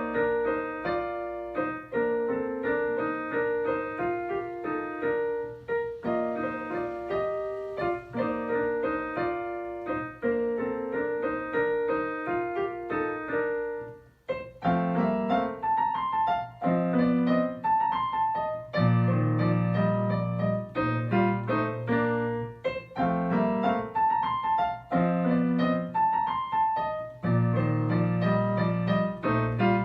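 Solo piano playing a short classical dance in a steady rhythm, a student's recital recording. About halfway through the playing breaks off briefly, then resumes with deep held bass notes under the tune.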